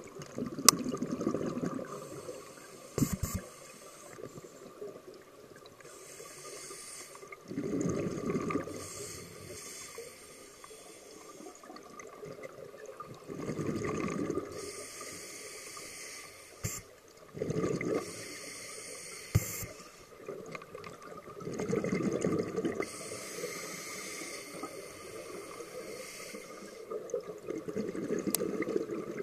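Underwater scuba breathing heard through a camera housing: the hiss of each inhalation through the regulator alternating with a bubbling rumble of exhaled air, in slow breaths every few seconds. A few sharp clicks cut in, the loudest under a second in.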